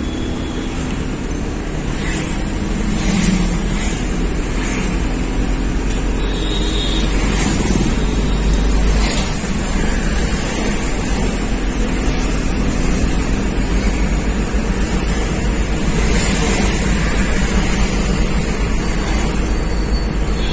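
Engine and road noise heard from inside a moving vehicle in city traffic: a steady low rumble, with a couple of short high tones from outside.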